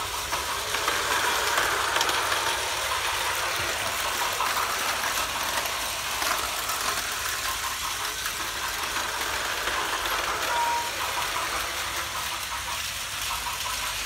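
Battery-powered Takara Tomy Plarail toy trains running on plastic track: a steady high motor whir with a light clatter of wheels and gears.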